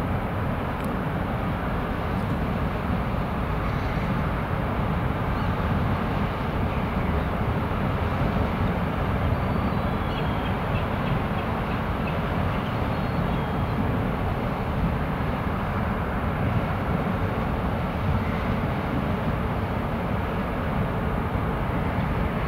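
Steady, even rumble of the ro-pax ferry Mecklenburg-Vorpommern's engines and propeller wash as the ship comes in to berth close past the shore.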